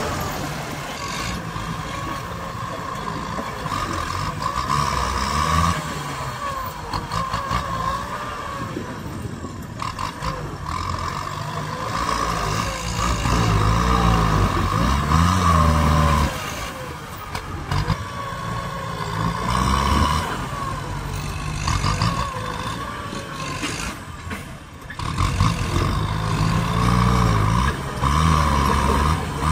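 Kubota tractor diesel engine running hard under load, its pitch rising and falling as the front dozer blade pushes into a hard termite mound, with a steady high-pitched whine over the engine. The sound briefly drops away near the end.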